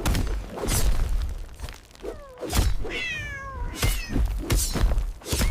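Fight sound effects: a string of heavy hits and thuds, with cat meows that slide downward in pitch about two and three seconds in.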